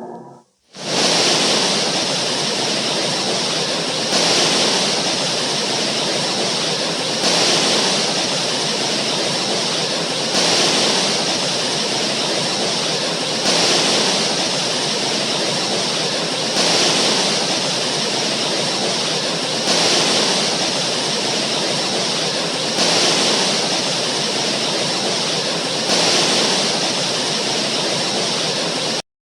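Synthesized 'dwarf planet sound', a space sonification made of steady rushing, hissing noise. It swells in a slow regular pulse about every three seconds.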